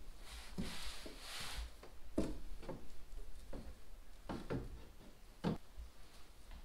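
Fiberglass cloth being handled and trimmed inside a wooden boat hull: a short rustle of the cloth, then a series of light knocks and clicks on the wood.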